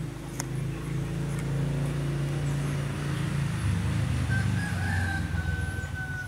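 A low, steady hum drops in pitch a little past halfway, and near the end a long, high, drawn-out call, like a bird's, sounds over it.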